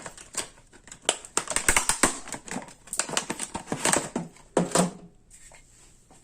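Packaging being handled and opened by hand: a run of irregular plastic and cardboard clicks, crinkles and rustles as the battery adapter is taken out. It is busiest in the first few seconds and dies away near the end.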